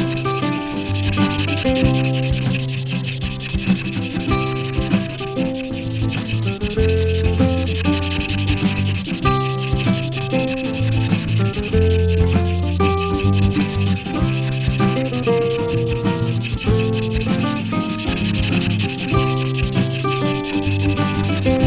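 Felt-tip marker rubbing and scratching across paper as outlines are traced, over background music with sustained bass notes and a simple melody.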